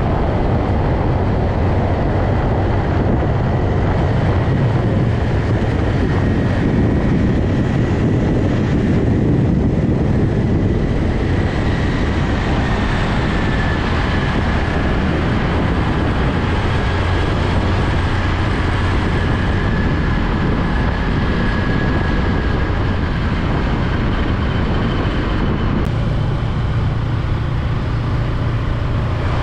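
Highway traffic passing close by: a steady rumble of truck and car engines and tyre noise, with a faint high whine. The sound shifts abruptly near the end.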